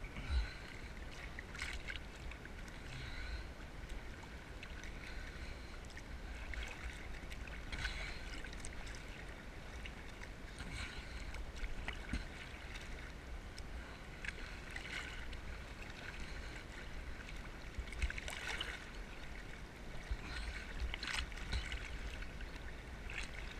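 Sea water lapping and sloshing against a waterproof camera housing held at the surface of choppy water, over a steady low rumble, with brief splashes every few seconds.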